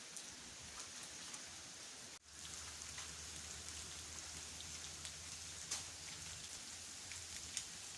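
Steady rain falling, a high hiss with scattered sharp ticks of drops hitting surfaces, with a brief drop in sound about two seconds in.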